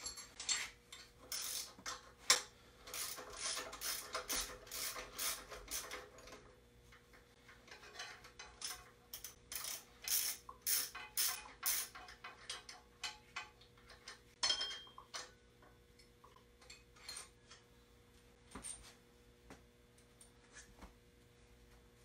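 Hand ratchet wrench clicking in quick runs while bolts are loosened on the front accessory drive brackets of a V8 engine. The runs of clicks are dense for the first several seconds and again in the middle, then thin out to a few scattered tool clicks near the end.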